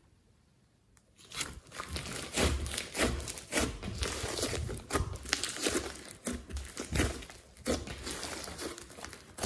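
Glossy slime mixed with foam and glitter being kneaded and stretched by hand, giving a dense run of crackling and squishing, starting about a second in.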